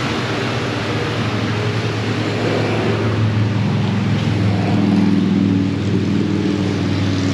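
A steady low mechanical hum from a running motor, with a hiss over it, that swells a little about halfway through.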